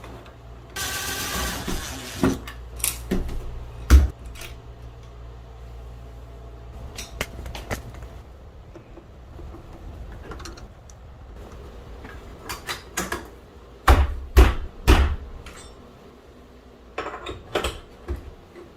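Parts of an Onity hotel door lock being handled and fitted back together: scattered clicks and knocks of small plastic and metal pieces, with a brief scraping rustle about a second in and a cluster of louder knocks near the end.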